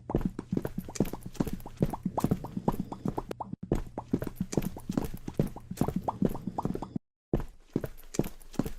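A fast, even run of clip-clop knocks, several a second, over a low hum. The run breaks off for an instant about halfway through and drops out briefly near the end.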